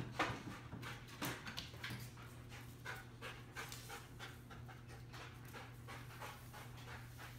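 A Dutch Shepherd search dog panting rapidly as it works the search, short breathy puffs several a second, over a steady low hum.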